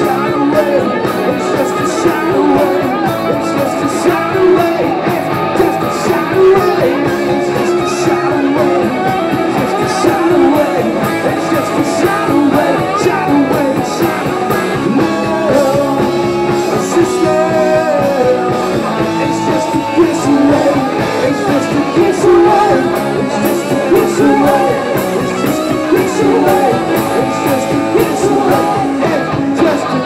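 Live rock band playing loudly, with electric guitar, a steady drum beat and singing.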